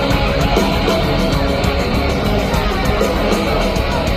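Nu-metal rock music: a distorted electric guitar riff over drums with an evenly repeating beat, playing loud and steady.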